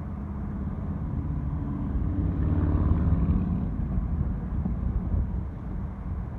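Low engine rumble of a passing motor vehicle, swelling to its loudest about three seconds in and then easing off.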